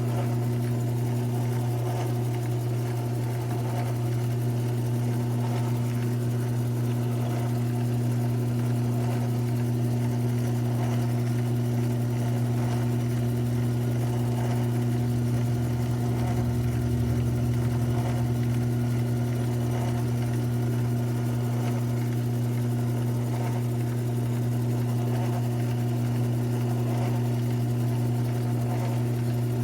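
Modified mini lathe's small electric motor running steadily with a low, even hum.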